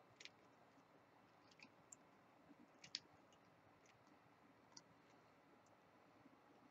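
Near silence with about five faint, scattered clicks, the loudest about three seconds in: small pliers and beaded wire being handled while the flower's wire stems are twisted together.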